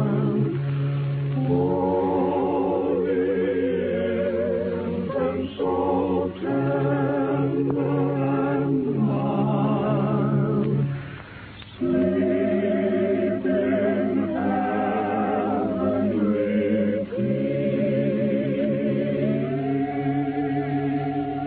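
A choir singing a slow piece in long, held phrases with a wavering vibrato, pausing briefly about eleven seconds in. It is heard through the narrow, dull sound of a 1938 radio aircheck recording.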